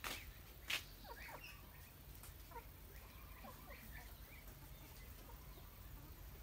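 Flock of young ducks peeping faintly, short falling calls scattered throughout, with two sharp clicks in the first second.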